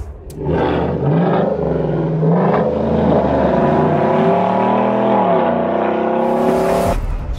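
Chevrolet Silverado V8 with an AWE catback exhaust accelerating hard through the gears. The pitch climbs and drops back with each upshift, and the sound cuts off suddenly near the end.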